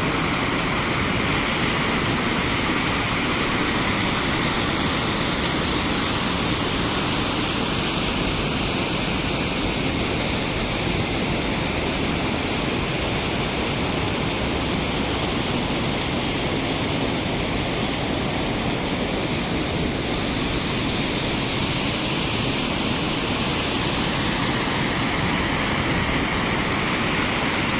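Waterfall on a large river, a steady loud rush of falling water that does not change.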